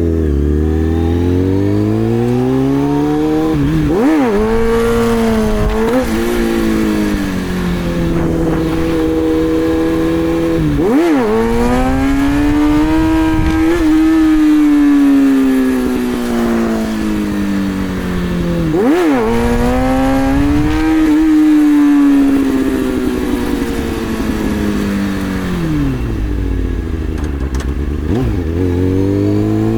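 2003 Kawasaki ZX-6R 636 inline-four sport bike engine revving up and easing off repeatedly in first gear during wheelie runs, its pitch climbing and falling in long sweeps. Brief sharp throttle blips come about 4, 11, 19 and 28 seconds in.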